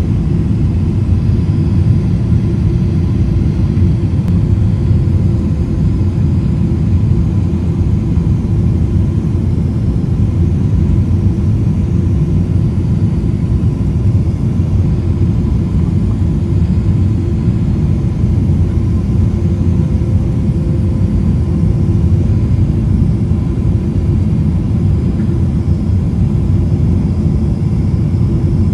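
Steady low rumble of jet engines and rushing air heard inside an airliner's passenger cabin during the descent on final approach, with a faint steady whine above it.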